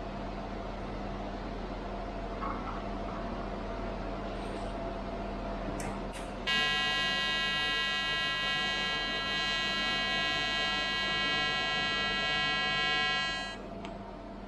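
TIG welding arc on stainless steel, struck about six and a half seconds in and held for about seven seconds as a steady, high-pitched buzz while filler rod is fed in, then dying away as the arc is broken.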